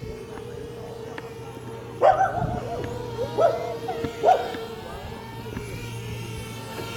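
A dog barks three times, about two, three and a half and four seconds in, over a steady hum.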